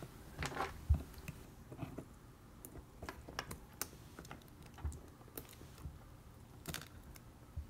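A small screwdriver working a screw out of a hard drive's metal top cover: scattered, irregular light clicks and ticks of the bit and fingers against the case.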